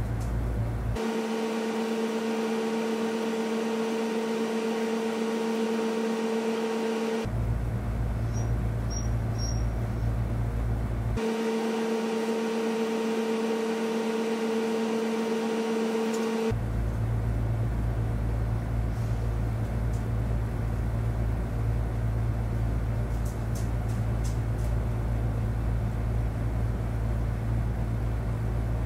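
Steady machine hum with a deep rumble. It switches abruptly to a higher two-tone hum twice, about a second in and again near the middle, each time returning to the deep rumble a few seconds later.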